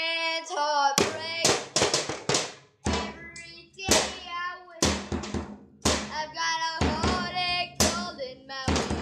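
Live rock band playing a blues-rock song: a held, wavering melody line in the first second, then a run of sharp drum hits with guitar and voice between them.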